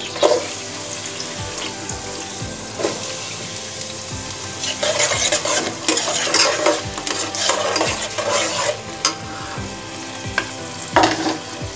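Chopped onions dropped into hot oil at the start, then sizzling steadily as they fry. A spatula stirs and scrapes around the pot, most busily in the middle.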